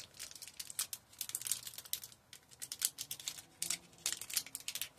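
Clear plastic decal sheet crinkling and crackling as fingers flex it and work a small sticker loose, an irregular run of sharp crackles.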